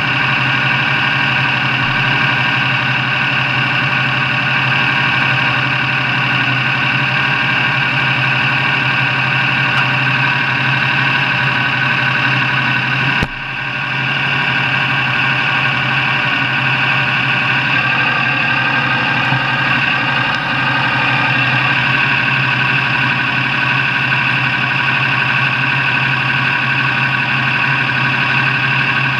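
An engine running steadily at an unchanging speed, with a brief sudden dip about 13 seconds in.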